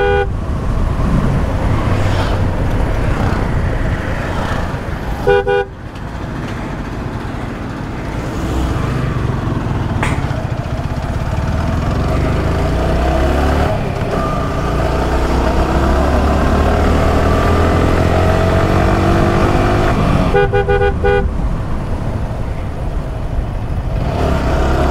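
Motorcycle riding along a road: engine and wind noise, with the engine's pitch rising and falling in the second half. A vehicle horn sounds in short rapid beeps three times: near the start, about five seconds in, and about twenty seconds in.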